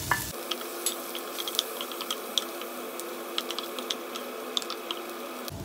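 Shredded salted fish, chillies and butter sizzling in a frying pan, with scattered small pops and ticks as the mix is stirred with a wooden spatula.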